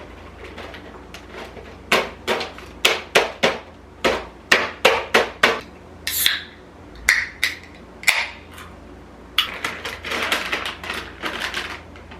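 A run of sharp knocks and clinks, two or three a second, with a few brief ringing clinks in the middle.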